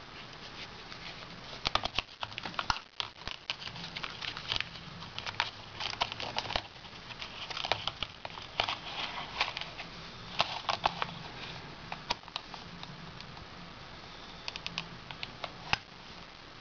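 Close handling noises of a Zippo lighter and its leather case: irregular sharp clicks and taps with soft rustling, busiest in the first two thirds and picking up again near the end.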